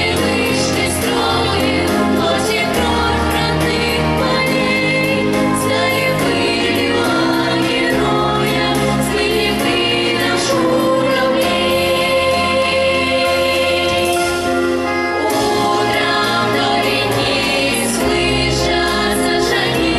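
A children's vocal group singing a song together over instrumental accompaniment with a steady bass line.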